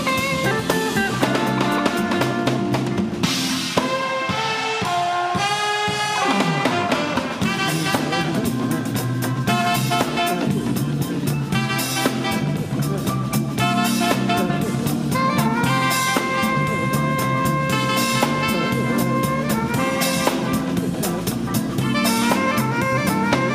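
Live soul-jazz band playing an instrumental groove: drum kit, bass and electric guitar under a melodic line from an alto saxophone, with a Hammond organ in the band.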